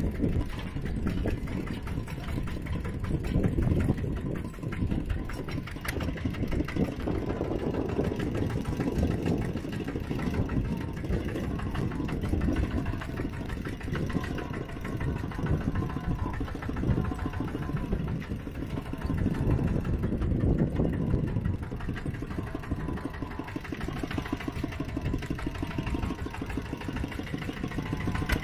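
Mini tractor engines running with a steady, rapid chugging that swells and eases a little as they drive.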